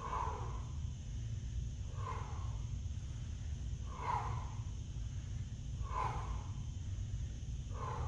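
A man's heavy breaths during dumbbell deadlifts: one short, forceful breath about every two seconds, five in all, keeping time with the reps, over a steady low hum.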